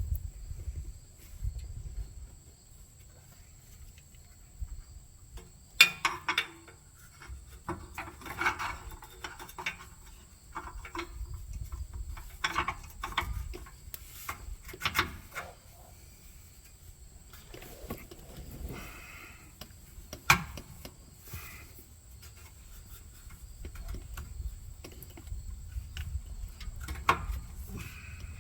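Hand tools and parts being handled during a car repair: scattered clinks, knocks and scrapes, with two sharper knocks about six and twenty seconds in.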